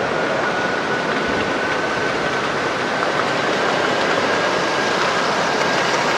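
O-gauge model trains running on a layout track: a steady rolling rumble of metal wheels on rail, with a thin high whine that rises slightly in pitch.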